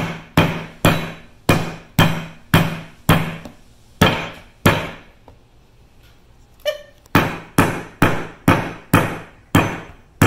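Metal meat mallet pounding a round steak on a plastic cutting board to tenderize it: sharp, evenly spaced blows, about two a second, each with a dull thud. The pounding stops for about two seconds midway, then resumes at the same pace.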